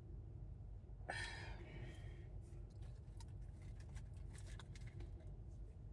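Quiet pause with a low steady hum, a woman's short wordless murmur about a second in, then faint scattered clicks.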